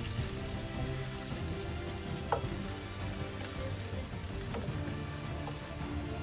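Leek boxes frying in oil in a pan, a steady sizzle, with a couple of light clicks near the middle.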